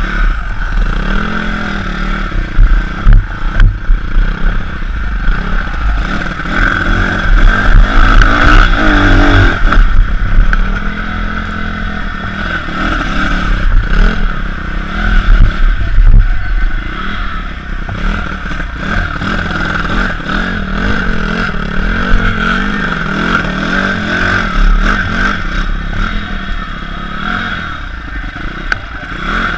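Pit bike engine running and revving up and down as it is ridden over rough ground, with the bike rattling over bumps and wind buffeting the helmet-mounted microphone.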